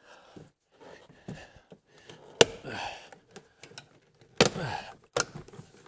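Plastic retainer clips of a Mercedes W163 rear door panel popping out of the door as the panel is pried off: a sharp snap a little over two seconds in and a second, longer crack about four and a half seconds in, with softer clicks and rustling of the panel between.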